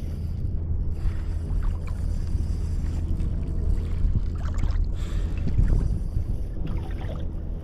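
Water sloshing against a fishing kayak's hull at sea, over a steady low rumble of wind on the microphone.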